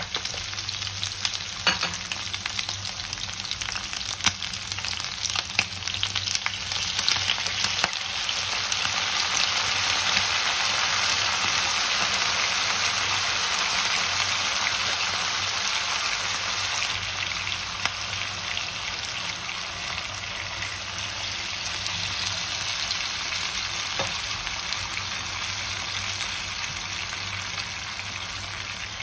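Chunks of meat with onion and garlic sizzling in a nonstick frying pan, with a wooden spoon scraping and clicking against the pan through the first several seconds. After that it settles into a steady sizzle that eases a little in the second half as juices collect in the pan.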